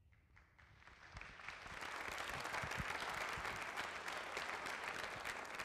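A large seated audience applauding, building over the first two seconds and then holding steady.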